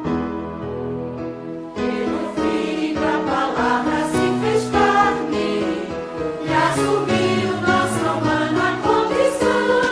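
A Christian worship song as background music: keyboard chords at first, then voices singing with the band from about two seconds in.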